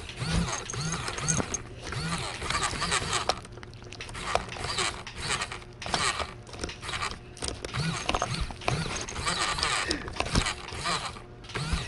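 Cats licking a soft paste treat right beside the microphone: close, wet licking and smacking in quick repeated strokes.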